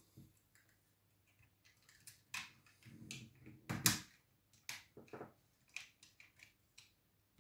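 Irregular light clicks and taps of small plastic parts being handled and fitted while an Anki Vector robot is put back together. The clicks start about two seconds in, and the loudest knock comes just before four seconds in.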